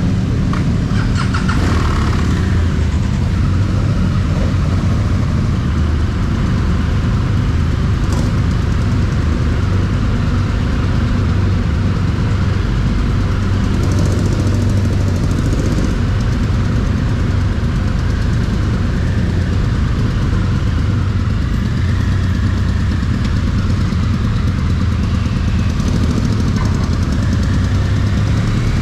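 BMW R1200GS Adventure's flat-twin engine running steadily at low revs as the motorcycle is ridden slowly across a ferry's vehicle deck.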